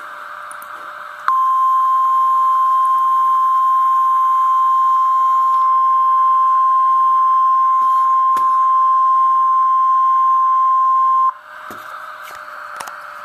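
Weather-radio warning alarm tone: one steady, loud single-pitch tone, about ten seconds long, that starts about a second in and cuts off sharply near the end. It signals the start of a test tornado warning. Radio hiss can be heard before and after the tone.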